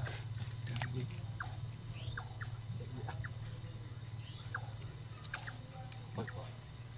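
Night-time insect chorus, a steady high-pitched trilling, with short chirping animal calls scattered through it and a steady low hum underneath.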